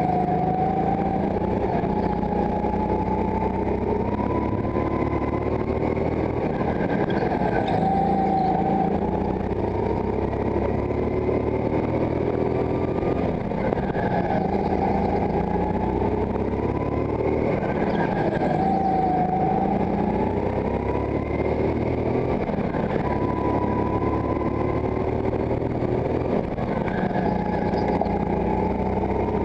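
Go-kart engine running hard, heard from on board, its pitch rising as it revs out and dropping off again every few seconds as the kart brakes for the corners, lap after lap.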